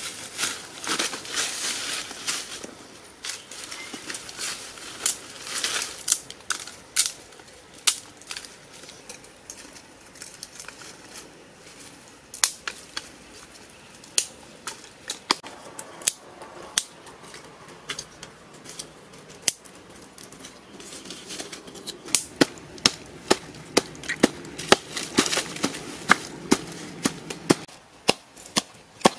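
Dry sticks and leaf litter crackling and snapping as sticks are laid between hearth stones. For the last several seconds a stone pestle pounds garlic and red chilies in a coconut-shell mortar in rapid, sharp strokes.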